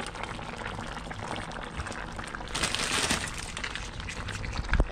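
A pot of steamed tilapia and vegetables simmering in broth, with a steady bubbling and sizzling. A short knock comes just before the end.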